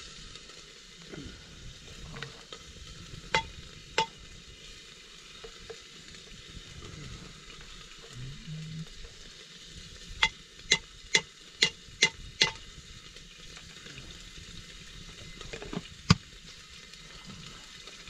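Food sizzling as it fries in a pan, a steady hiss, broken by sharp clinks of a stirring utensil against the pan: two in the first few seconds, a quick run of six at about two a second in the middle, and one more near the end.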